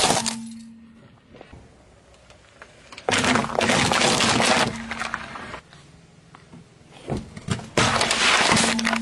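A car tyre slowly rolling over and crushing small plastic toys and paper cups on asphalt, in loud crunching, cracking bursts: one dying away just after the start, a long one of about a second and a half around three seconds in, and a pair of sharp snaps followed by another crunch near the end.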